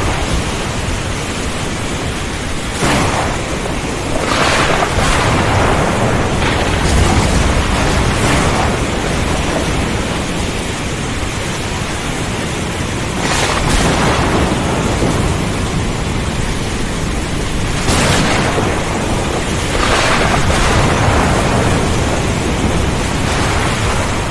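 Heavy rain pouring steadily in a thunderstorm, with several sudden cracks and rolls of thunder over a deep rumble.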